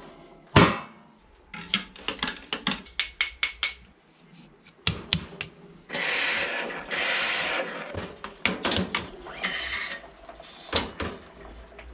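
Lever espresso machine being worked by hand: a loud metal knock, then a quick run of clicks and clacks from the portafilter and machine parts. Past the middle the machine hisses steadily for about two seconds, and hisses again briefly near the end as the lever is pulled down.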